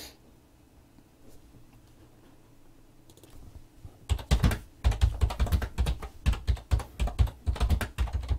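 Typing on a computer keyboard: a single keystroke, a pause of about four seconds with only a faint tap or two, then a quick, irregular run of keystrokes from about four seconds in.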